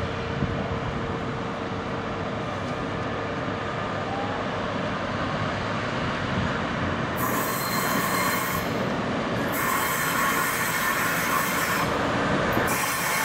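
Freightliner Class 66 diesel-electric locomotive, its two-stroke V12 engine running, hauling a long train of hopper wagons slowly over pointwork with steady rumbling from the wheels and rails. A high hiss switches on about seven seconds in and comes and goes after that.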